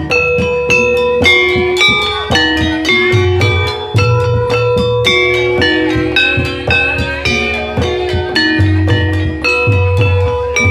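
Javanese gamelan music accompanying an ebeg horse dance: a quick, unbroken run of struck, ringing pitched notes over a low throbbing layer that comes and goes every second or two.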